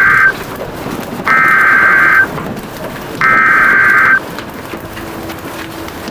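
Three bursts of EAS SAME header tones: warbling digital data tones, each about a second long and about a second apart, that open an emergency weather alert. Steady rain and thunder sound underneath them.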